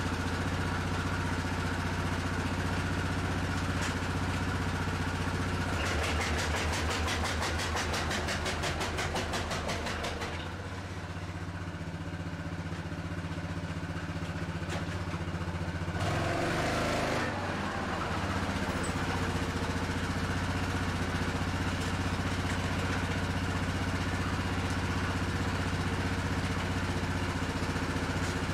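2002 Yamaha Grizzly 660's single-cylinder four-stroke engine running. About six seconds in it stutters rapidly and evenly for a few seconds, cutting out as it does in reverse, which the owner puts down to the rev limiter. After a rough, louder moment a little past the middle it settles back to a steady idle.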